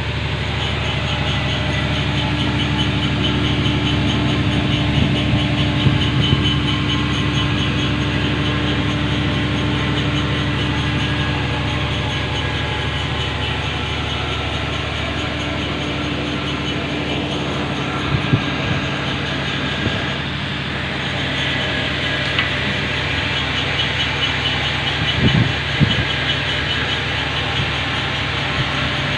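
Steady low drone of running heavy machinery, a hum of several steady tones under a constant hiss, with a few brief knocks in the second half.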